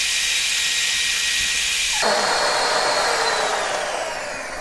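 SilverCrest electric hand mixer whirring as its beaters whip cake batter of egg yolk, sugar, oil and orange juice in a glass bowl. About two seconds in, its whine starts falling in pitch as the motor slows.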